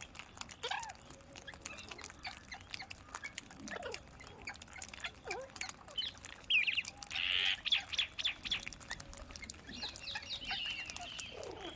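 Parrots calling, with short chirps and gliding squawks amid many brief clicks. A louder, harsher screech comes about seven seconds in, and a steadier high-pitched call near the end.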